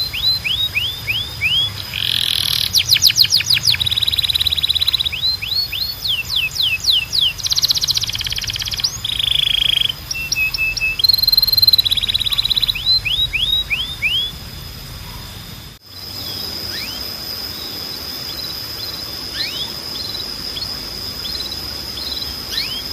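Domestic canary singing a fast, varied song of rolling trills, runs of quick falling whistled notes and short held tones. About sixteen seconds in the sound cuts out for an instant, and after that only a few scattered short falling notes come over a steady high whine.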